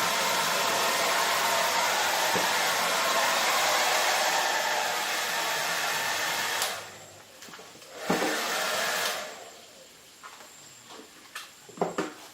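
An electric blower runs with a steady rush of air and is switched off about seven seconds in, then runs again briefly for about a second. A few light clicks and knocks follow near the end.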